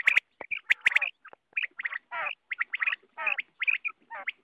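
Common quail calling in a rapid run of short, sharp calls, several a second, some sliding down in pitch.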